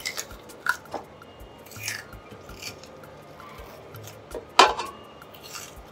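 Kitchen knife cutting through tough pomo (cow skin) over a metal pot: a series of short, crisp cuts, the loudest a little over four and a half seconds in. Faint background music with a low beat runs underneath.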